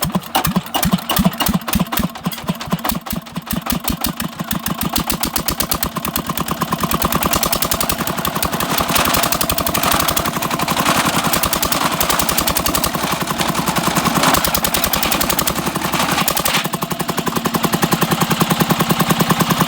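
Hand-crank-started engine firing and running, its exhaust beat quickening from a few beats a second to a fast, steady run as it picks up speed.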